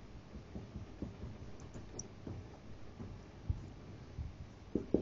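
Faint taps and scrapes of a marker pen writing on a whiteboard, with a few soft knocks, the clearest about three and a half seconds in and near the end.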